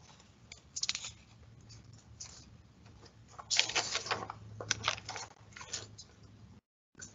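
Faint scattered rustling and clicking handling noises, strongest in a cluster a few seconds in, with the audio cutting out completely for a moment near the end.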